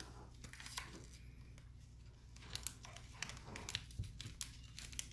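Faint rustling and crinkling of a satin ribbon being tied into a bow over a plastic treat wrapper, with a cluster of small sharp crinkles about halfway through.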